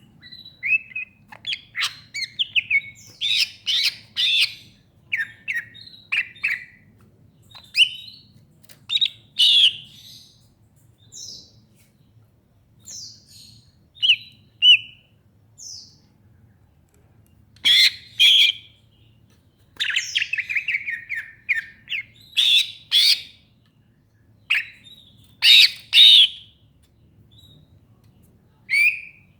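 Green leafbird (cucak ijo) singing in short, varied whistled and chattering phrases separated by pauses, with a fast run of repeated notes about twenty seconds in.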